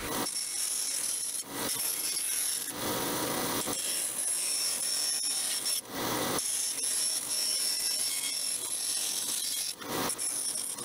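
Bandsaw running and cutting thin 1/16-inch sheet aluminum: a steady high-pitched sawing noise with a few brief dips.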